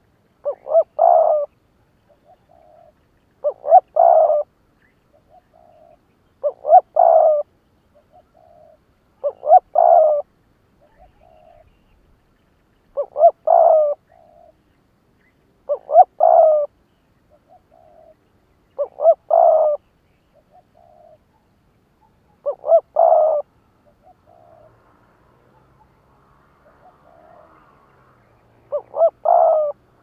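Spotted dove cooing: a short phrase of a couple of quick notes and a longer coo, repeated about every three seconds with soft single notes between, and one longer pause near the end. It is a caged decoy dove's call, used to challenge and lure wild doves.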